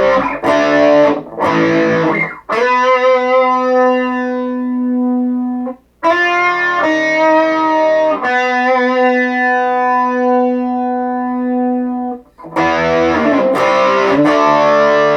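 Electric guitar played through a Positive Grid Reactor 50 combo amp on an AI-generated overdriven rock tone. A few short chord stabs lead into two long sustained notes, each held for several seconds. Quick choppy chords return near the end.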